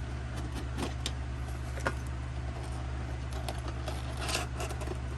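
Scattered light clicks and rubbing as a Pokémon tin's contents and packaging are handled and unpacked, over a steady low hum.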